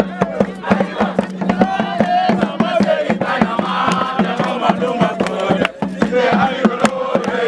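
A group of voices chanting and singing together over fast, rhythmic percussive strikes, with a steady low hum underneath; the singing swells in from about a second and a half in.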